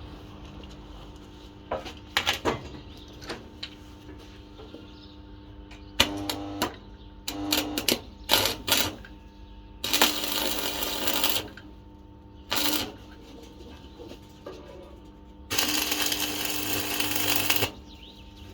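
Metalworking sounds: scattered sharp metal clicks and knocks, then two bursts of harsh noise lasting a second or two each, over a steady low hum.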